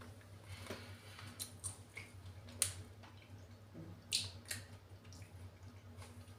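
Quiet chewing of a gummy fruit candy, with small wet mouth clicks, and a plastic candy bag crinkling in the hand now and then as a few short sharp clicks, over a low steady hum.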